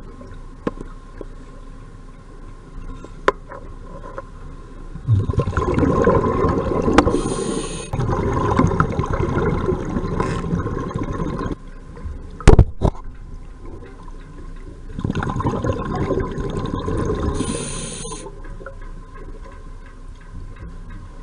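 Underwater bubbling from a scuba diver's regulator: two long gurgling bursts of exhaled bubbles, each with a short hiss. A sharp knock about halfway through is the loudest sound.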